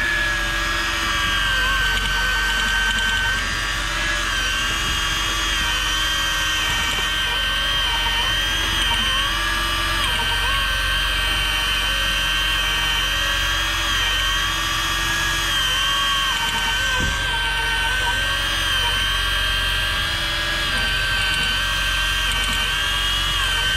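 A motor whining steadily at a high pitch that wavers slightly, over a low hum.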